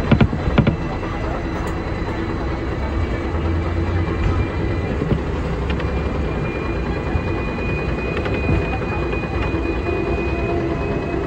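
Hong Kong seventh-generation tram No. 174, with AC traction drive, pulling away from a stop and running along street tracks: a steady rumble of motors and wheels on the rails. There are a few sharp knocks right at the start, and a high whine that rises slightly from about six seconds in as the tram gathers speed.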